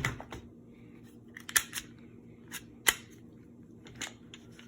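Several sharp clicks and clacks of pistols and magazines being handled and set down, with the loudest a little past a second and a half in and near three seconds.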